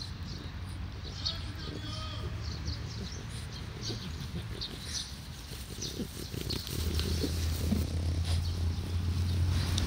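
Elderly French bulldog sniffing and snuffling through grass at close range. A low rumble grows louder over the last few seconds.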